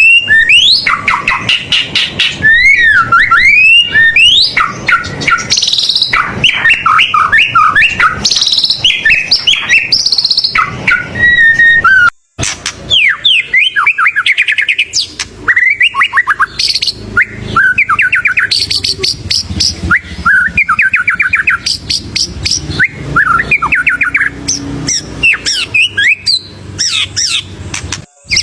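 White-rumped shama (murai batu) singing loudly and without pause: a fast, varied string of whistles, slurred notes, trills and rattling phrases, a 'full isian' song packed with mimicked calls. The song breaks off briefly about twelve seconds in.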